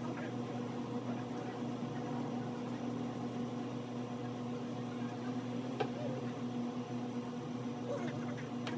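Steady low electrical hum, like a small motor or fan running, with a couple of faint ticks about six seconds in and near the end.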